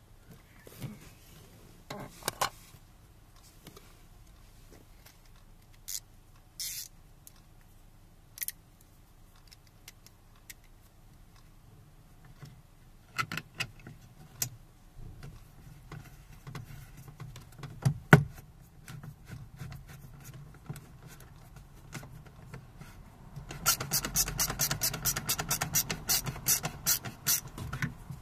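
Hands working on a car's plastic interior door trim around the inside door handle: scattered clicks and knocks, with a sharp knock about two-thirds of the way in, then a fast run of clicks over the last few seconds.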